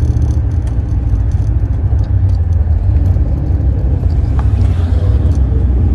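1968 Camaro's engine and chambered exhaust droning steadily at cruise, heard from inside the cabin, with faint light rattles over it.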